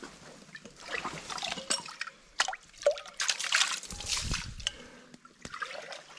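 Water sloshing and splashing as a cooking pot is dipped into a shallow trickling creek and filled, with a few sharp knocks in between.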